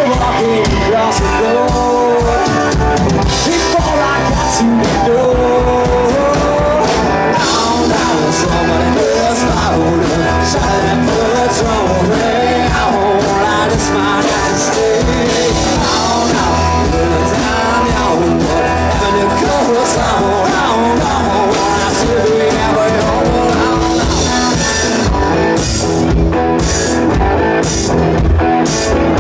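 Live country-rock band playing: electric and acoustic guitars, bass guitar and drum kit, with a male lead vocal.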